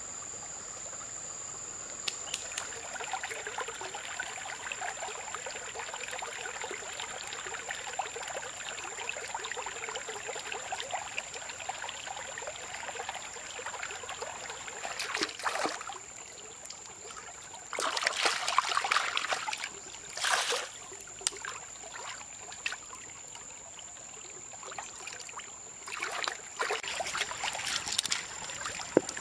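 Shallow creek trickling over stones, under a steady high-pitched insect drone. Several louder noisy bursts of a second or two break in, the biggest about eighteen seconds in.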